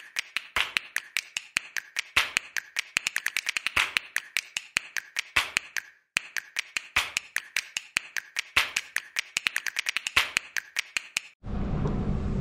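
A rapid run of sharp clicks, several a second and unevenly spaced, with a brief break about halfway. About a second before the end it cuts off abruptly, replaced by a steady outdoor rush of noise with a low hum.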